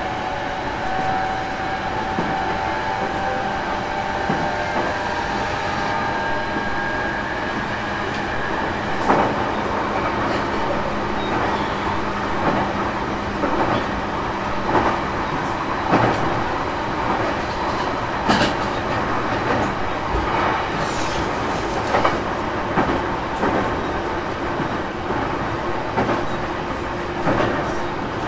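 Running sound inside a JR East E233 series motor car (MoHa E233) at speed: a faint traction-motor whine drifts slightly downward and fades out in the first several seconds. After that the wheels click over rail joints every second or two over a steady rumble, with the air conditioning running.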